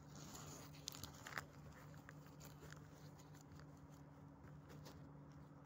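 Faint rustling and clicking of a phone rubbing against clothing, with a couple of sharper clicks about a second in, over the low steady hum of the bus.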